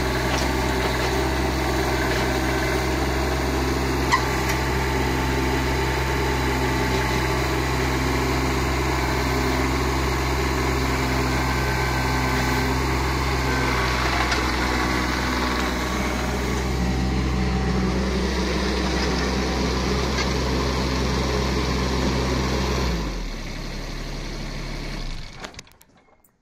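JCB 16C-1 mini digger's Perkins diesel engine running steadily. About 23 s in its note drops, and a couple of seconds later the engine is switched off and stops.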